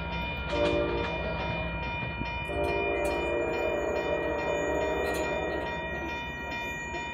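Commuter rail locomotive horn sounding a short blast, then a long held chord, from a train pulling away. Under it a grade-crossing bell rings steadily.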